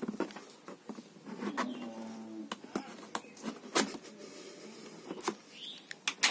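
Scissors snipping through the tape seals of a cardboard laptop box, a string of sharp, irregularly spaced clicks and snips with the box being handled in between.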